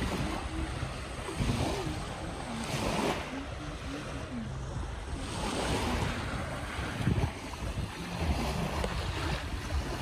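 Small sea waves washing onto a pebble beach, swelling and easing every couple of seconds, with wind buffeting the microphone.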